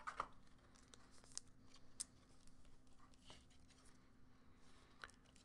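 Near silence: quiet room tone with a faint steady hum and a few faint, short clicks and rustles of small handling noises.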